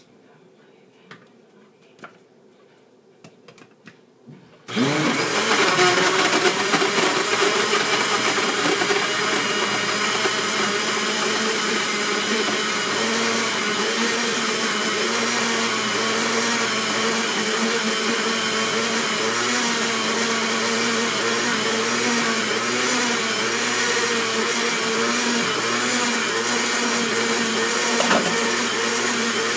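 Countertop blender with a glass jar blending a banana milkshake: a few light clicks as the lid is fitted, then the motor starts suddenly about five seconds in and runs steadily at full speed, its hum wavering slightly as the contents churn. A single knock near the end.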